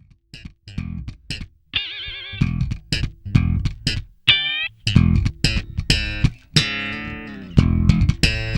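Instrumental rock music: electric guitar and bass playing short, stabbed notes, with a held wavering note about two seconds in and a bent note near the middle.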